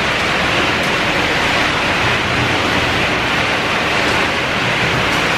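Pet food production line machinery running: a loud, steady rushing noise from the conveyors, rotating drum and dryer, with a faint hum underneath.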